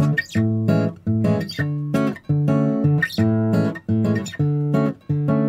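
Background music: a guitar playing plucked chords in a steady rhythm.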